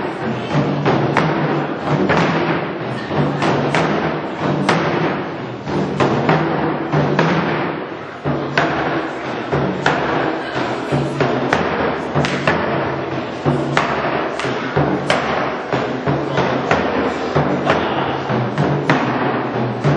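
Korean traditional drum ensemble playing live: many drums struck together in a fast, dense rhythm, easing briefly about eight seconds in before driving on again.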